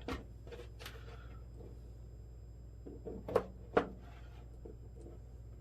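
A few light clicks and taps, two sharper ones about three and a half seconds in, from metal test leads and clips being handled and touched to the cells, over a steady low hum.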